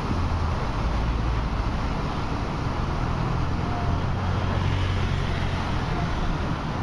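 Road traffic on a bridge: car engines running and passing over a steady rushing noise, with the low engine rumble swelling and fading a couple of times.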